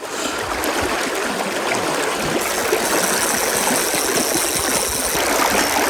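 Steady rush of a river's flowing current.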